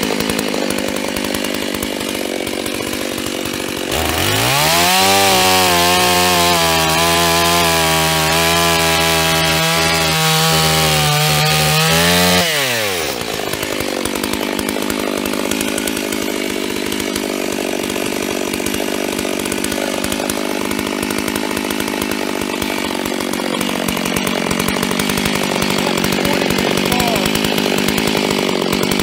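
FarmerTec G388 (Stihl MS380 clone) 72 cc two-stroke chainsaw idling, then opened to full throttle about four seconds in and held steady for about eight seconds while cutting through a log. The revs then fall away and it idles for the rest.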